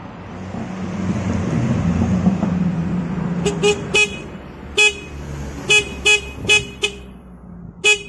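Yamaha Vixion motorcycle's electric disc horn sounding in about nine short beeps as the horn button is pressed repeatedly, starting about three and a half seconds in. The horn works again now that the corroded horn-button contacts have been cleaned, confirming the fault lay only in the button. Before the beeps there is a low rumble that swells and fades.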